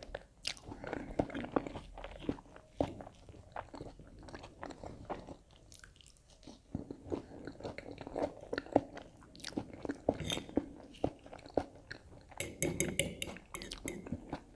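Close-miked chewing and crunching of a breadcrumb-coated Findus Sofficino, a stuffed crepe, with irregular crisp crunches. There is a pause about halfway through, then a quick flurry of crunches near the end.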